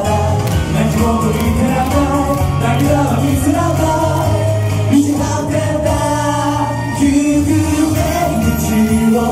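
Male vocal group singing a pop song live over backing music.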